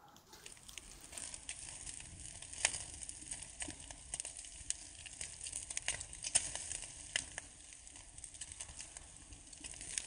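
Wood campfire crackling, with frequent sharp pops over a steady hiss.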